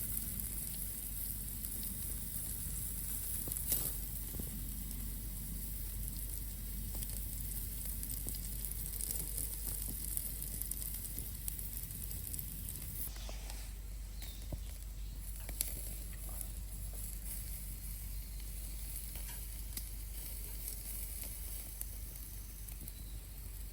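Food sizzling as it fries in a pan: a steady hiss with a few faint pops.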